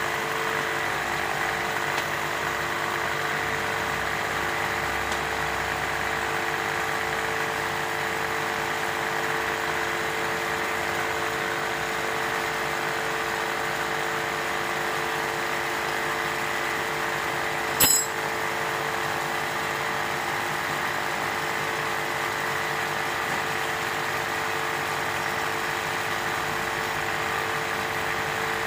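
A small motor running with a steady hum and hiss; one sharp click about eighteen seconds in.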